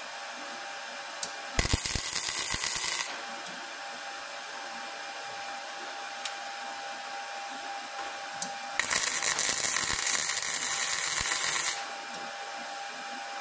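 Flux-core arc welding: two tack welds on steel rebar and angle iron, made with a Titanium Unlimited 200 running 0.030 Lincoln flux-core wire on DCEN. The arc crackles for about a second and a half, starting about a second and a half in, then again for about three seconds, starting about nine seconds in. A steady hum runs between the tacks.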